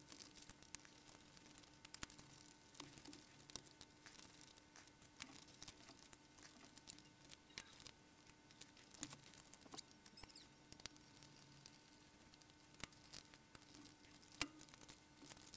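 Faint, scattered small clicks and taps of a Sony CCD-TR705E camcorder's casing being handled and taken apart, over a faint steady hum.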